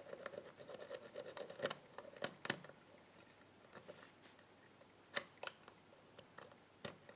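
Lock pick working the pins of a pin tumbler lock held under tension: faint, irregular small clicks and scrapes, thick during the first couple of seconds and only a few after. The clicks are the security pins and spools being set and probed.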